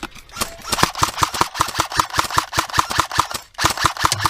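Airsoft gun firing rapid full-auto strings of sharp clacks, about eight to ten shots a second, with a brief break about three and a half seconds in before a second burst.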